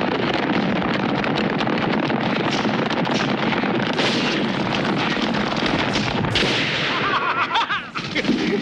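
Film battle soundtrack: a dense, continuous din of gunfire and blasts. A man shouts over it near the end.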